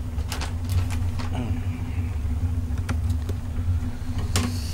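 Steady low rumble of a portable gas burner heating a pot of ramyeon, with a few light clicks and taps of utensils.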